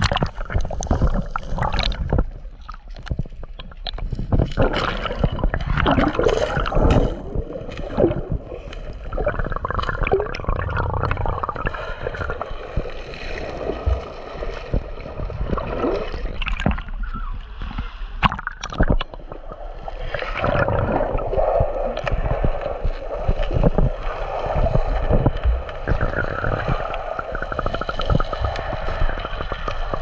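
Sea water sloshing and gurgling around a camera held at and under the surface, heard muffled from underwater, with many scattered clicks and knocks.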